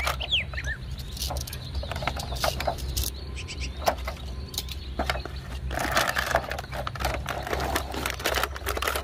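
A cardboard toy box being handled and opened by hand, with scattered taps and scrapes, then the clear plastic tray inside crinkling as it is pulled out over the last few seconds. A bird chirps a few times in the first second over a steady low rumble.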